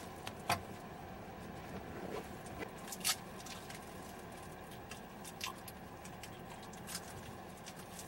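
Faint, steady running noise inside a car, with a few sharp clicks scattered through it, the loudest about half a second and three seconds in.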